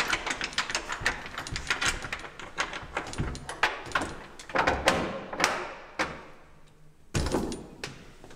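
Front-door locks, bolts and latch clicking and rattling as the door is unlocked from inside, many knocks and clicks in quick succession. There is a short lull about six seconds in, then a louder clatter near the end.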